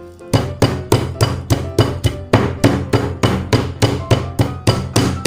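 Meat mallet pounding a cling-wrapped chicken fillet on a chopping board, flattening it: a fast, steady run of about three strikes a second, starting just after the start.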